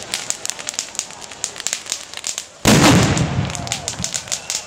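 Fireworks going off: a running crackle of small pops, then one loud bang about halfway through that rumbles on for about a second.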